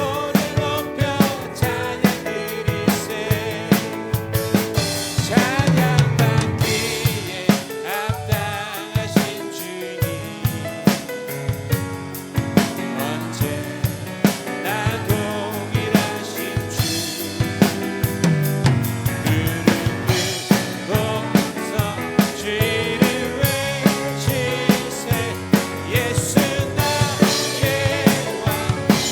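Drum kit playing a steady beat with bass drum and snare, along with a live worship band and singing.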